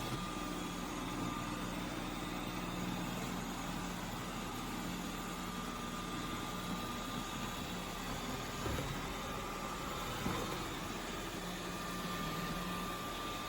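Tapo RV30 Max Plus robot vacuum running, a steady motor and suction whir with a faint hum, and a couple of light knocks about nine and ten seconds in.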